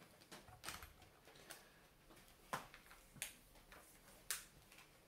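A handful of faint, irregular clicks and light taps as a multimeter and its test leads are handled and lifted off a hard countertop.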